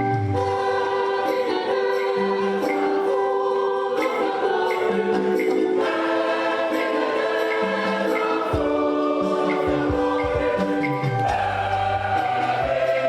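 Choral music: a choir singing long held notes, with a low bass line coming in about two-thirds of the way through.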